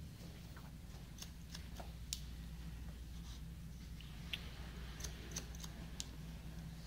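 Hair-cutting scissors snipping a child's hair in short, irregular clicks, several in the second half, over a steady low hum.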